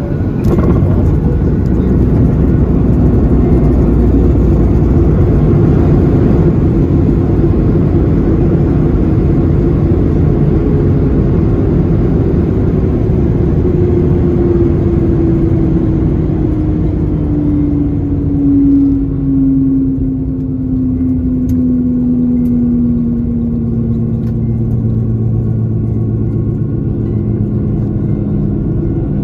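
Boeing 737-800 heard from inside the cabin on landing: a loud, steady rumble that jumps up just after the start, then an engine whine that falls slowly in pitch through the second half as the CFM56 engines spool down and the jet slows on the runway.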